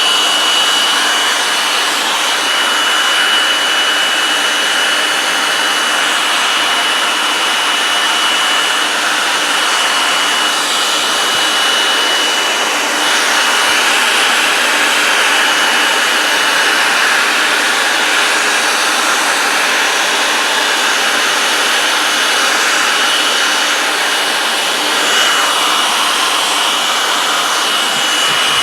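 Hand-held hot-air blower running steadily on high, a constant rush of air with a steady high-pitched motor whine, heating a vinyl wrap to set it on a rifle magazine.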